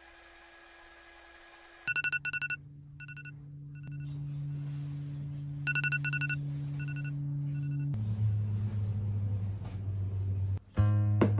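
Electronic alarm beeping in quick clusters of short high-pitched beeps, over a low steady hum. Guitar music comes in near the end.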